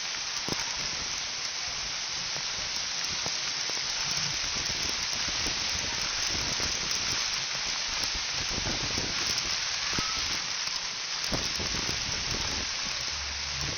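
Heavy rain falling: a steady, even hiss with scattered faint drop ticks.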